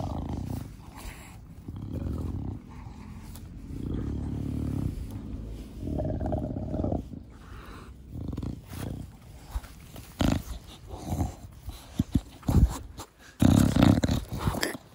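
English bulldog breathing noisily, a snorting 'fugo fugo' with each long breath, the breathing of a short-nosed breed. In the last few seconds several sharp knocks and a loud burst of rustling come in.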